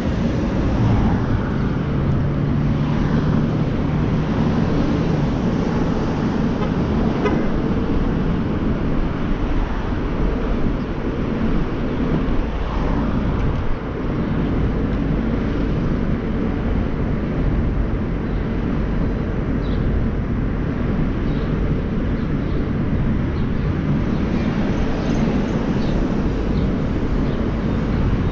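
Road and traffic noise from a car driving through city streets: a steady low rumble, with a low hum for a few seconds near the start.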